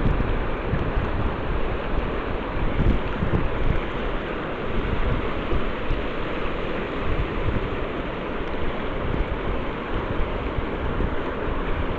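Steady rush of flowing river water, with wind buffeting the microphone in uneven low gusts.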